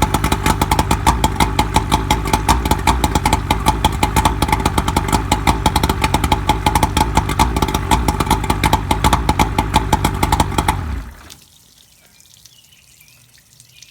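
A 2001 Johnson 70 hp outboard motor running steadily at idle with an even, rapid pulsing beat, then stopping about eleven seconds in.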